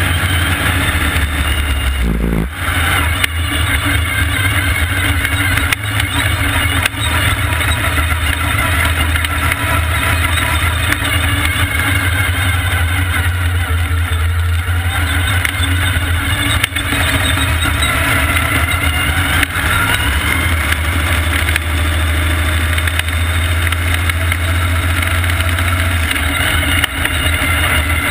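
Vintage supermodified race car's engine running, heard loud and close from on board the car, a steady low drone under a dense roar of engine and track noise.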